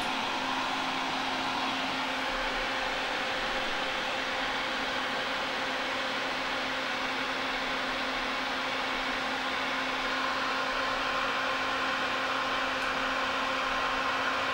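A steady fan-like whir with a hiss, over a faint steady hum, unchanging throughout.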